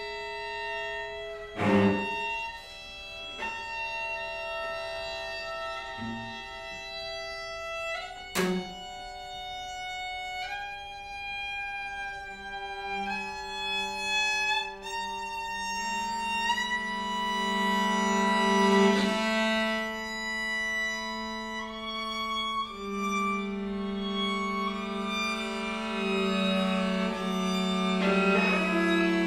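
String quartet of two violins, viola and cello playing long, overlapping held notes that shift pitch in small steps, with the cello sustaining a low note beneath the upper strings in the second half. Two sharp, short accents cut through, about two seconds in and again about eight seconds in.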